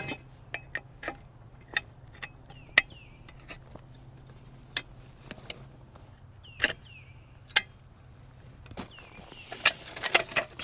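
Metal parts of a cant hook clicking and clinking as an attachment is fitted onto it: a dozen or so separate sharp taps and knocks, a couple with a short metallic ring, over a faint low hum.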